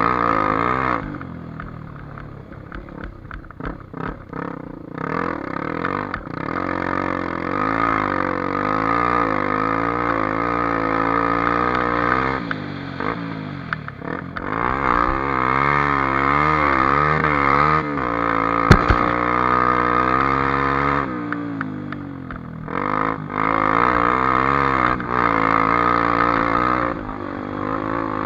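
Honda XR250 Tornado's single-cylinder four-stroke engine running under riding load, its pitch constantly rising and falling with the throttle. The engine drops off around a second in and again near the end, then picks back up.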